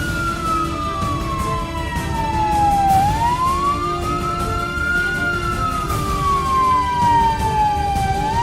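Emergency vehicle siren wailing, its pitch rising and then falling slowly, one full cycle about every five seconds, over a steady low rumble.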